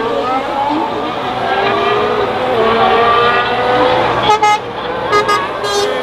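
2022 Formula 1 car's 1.6-litre turbocharged V6 hybrid engine running at speed through the corners, its pitch rising and falling. Three short sharp bursts in the last two seconds.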